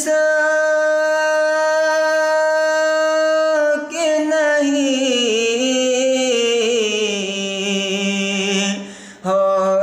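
A man singing an Urdu naat unaccompanied. He holds one long steady note for nearly four seconds, then sings a slow ornamented run that drifts downward in pitch, with a brief breath about nine seconds in.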